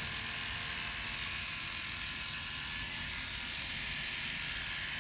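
Electric hair clippers running steadily, shaving the hair of the scalp's donor region short before follicular unit extraction.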